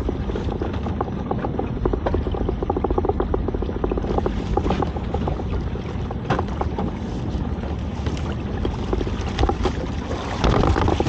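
Small fishing boat's engine running steadily, with some wind on the microphone, while a lobster pot is hauled up to the side. The wet pot knocks against the gunwale near the end as it comes aboard.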